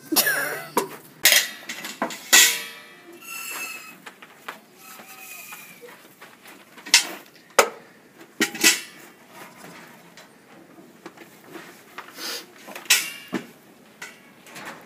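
Metal containers clanking and knocking, a dozen or so irregular sharp strikes, several of them ringing briefly.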